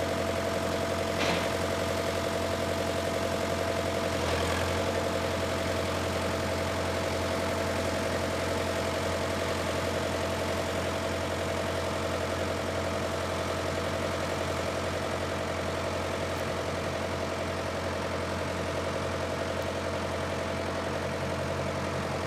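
White 2-60 tractor's engine running steadily at a low, even idle, with a couple of brief clicks in the first few seconds.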